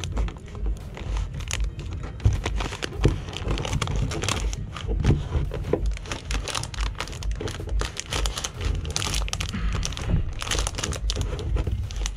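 Armaflex foam insulation and duct tape crinkling and scraping against the sheet-metal pillar of a van, as the foam is worked into the cavity and drawn through by pulling on the tape. The scrapes come in irregular bursts.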